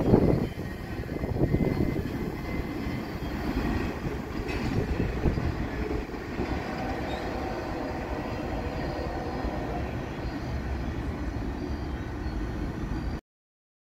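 Freight train rolling away on the rails after passing close by. Its rumble drops quickly at first, then runs on as a steady lower rumble until it cuts off suddenly near the end.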